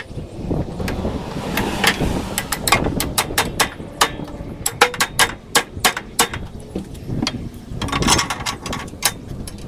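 Irregular metal clicks, knocks and a few ringing clanks as parts of a Walker mower's tilt-up deck are handled and put back in place.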